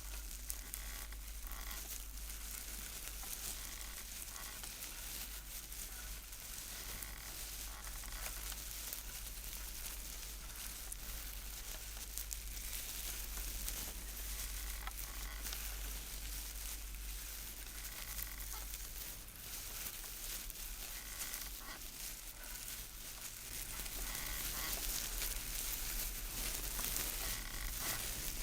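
Live hand-made foley noise: a steady rushing hiss that swells a little louder near the end.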